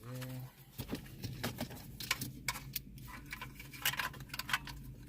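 Plastic wiring-harness connectors being handled and pushed into the back of a car radio unit: a string of irregular small clicks and light plastic rattles. A brief low hum sounds right at the start.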